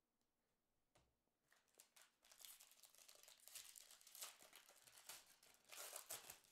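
A foil Panini Donruss basketball card pack being crinkled and torn open by hand. A run of crackling starts about a second and a half in and is loudest near the end.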